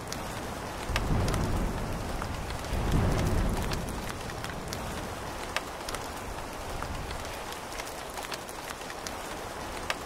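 Rain falling steadily, with scattered drop ticks and low rumbles swelling about one and three seconds in.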